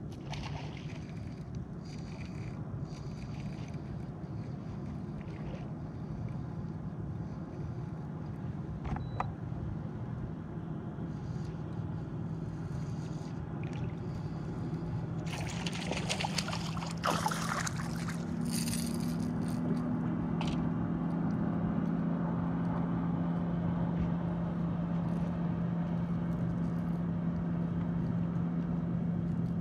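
Bow-mounted electric trolling motor humming steadily, growing louder with a second, higher hum from about two-thirds of the way through. About halfway in come a few seconds of splashing and scraping as a hooked smallmouth bass is brought to the boat.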